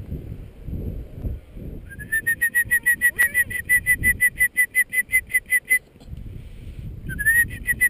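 A shrill, rapidly pulsing whistle trill, about eight pulses a second, starting with a short upward slide. It runs from about two seconds in to nearly six seconds, stops, and starts again about seven seconds in. Low rumbling handling noise lies underneath.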